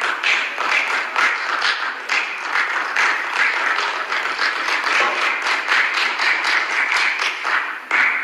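Applause: a crowd of members clapping steadily, cutting off suddenly at the end.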